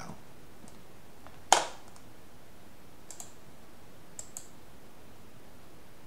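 Computer mouse clicks: one sharp, loud click about a second and a half in, then a few faint clicks, including a quick pair a little after the four-second mark.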